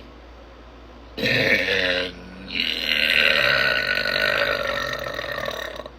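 A woman burping loudly twice: a short burp about a second in, then after a brief pause a long, drawn-out burp lasting over three seconds.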